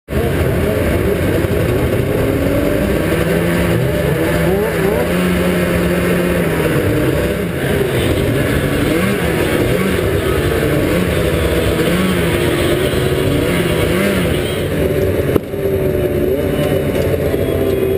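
Several racing snowmobiles' two-stroke engines running, their throttles blipped so the pitch keeps rising and falling, including the camera rider's Arctic Cat F5 Sno Pro 500.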